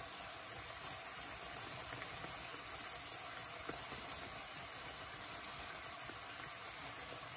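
Thick prawn curry simmering and sizzling steadily in a frying pan over high heat.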